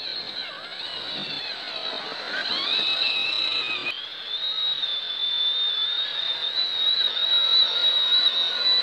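Electric motors and geared drivetrains of radio-controlled rock crawlers whining as they crawl over rock. It is a high tone whose pitch rises and falls with the throttle, and it jumps abruptly about four seconds in.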